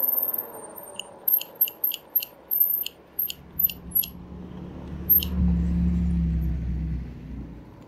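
A run of about ten sharp, irregular clicks from the electric bike as it slows, then a low rumble for about two seconds near the end.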